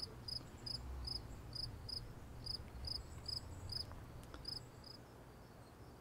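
A cricket chirping in a steady rhythm, about two and a half short high chirps a second, which stops about four and a half seconds in.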